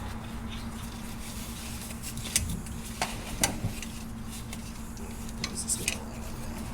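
A ratchet strap's metal hooks and ratchet being handled while it is hooked to the frame and coil spring: a few light, sharp metallic clinks and clicks, scattered and irregular, over a steady low hum.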